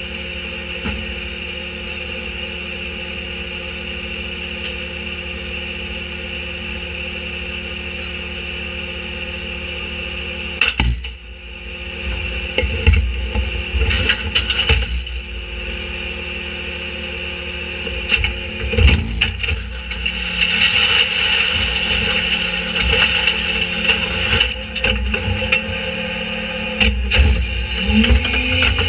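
Autocar Leach rear-loader garbage truck's diesel engine idling with a steady hum. From about ten seconds in, hollow plastic playhouse panels knock and crack as they are tossed into the steel hopper. Near the end the engine revs up as the hydraulic packer blade starts its cycle.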